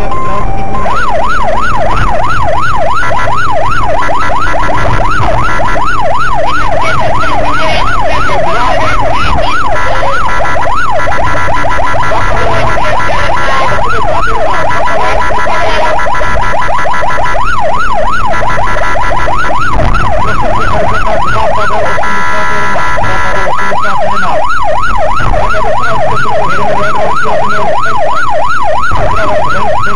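Police siren wailing in a fast yelp, its pitch sweeping up and down about three times a second, over loud, steady road and engine noise.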